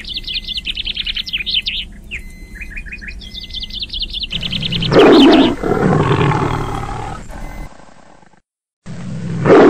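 Birds singing in rapid, repeated trilling chirps. About four seconds in they are cut off by a loud, deep animal roar that trails off into rough growling. After a moment of dead silence, a second loud roar comes near the end.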